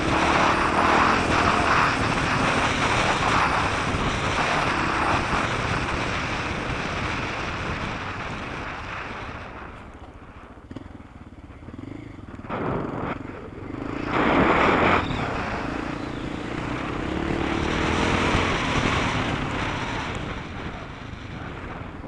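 Off-road motorcycle engine running hard along a dirt track. About ten seconds in it eases off, then gives two short bursts of throttle and pulls again.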